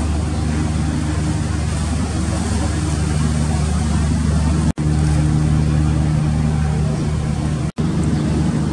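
The engines of the passenger ship KM Glory Mary droning steadily at sea, a low even hum under a wash of wind and water noise. The sound cuts out for an instant twice, about halfway through and near the end.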